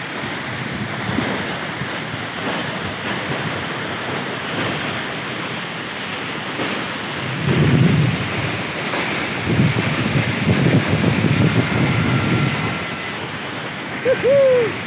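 Steady rush of a waterfall mixed with wind buffeting the microphone. Heavier wind gusts rumble about halfway through.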